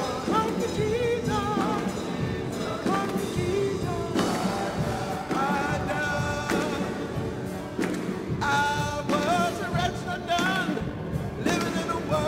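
Live gospel song: a voice singing with wavering held notes over piano accompaniment with a steady beat.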